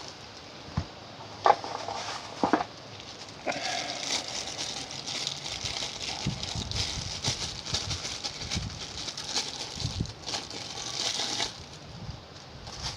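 Packaging being handled as a small red dot sight is unpacked: a couple of sharp clicks, then several seconds of continuous crinkling and rustling.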